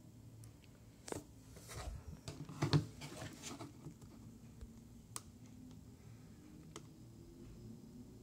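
Faint handling noise: rustling and knocking for a few seconds, loudest about two and a half seconds in, then two single sharp clicks a second and a half apart.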